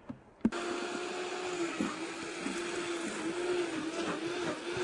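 Vitamix blender switched on about half a second in, then running steadily with a slightly wavering motor whine, blending wheatgrass with water and ice cubes.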